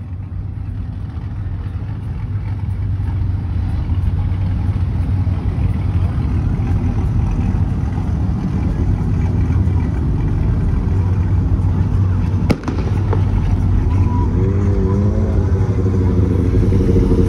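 Car engine and exhaust running with a loud, deep rumble that slowly builds, with one sharp bang about twelve seconds in and voices near the end.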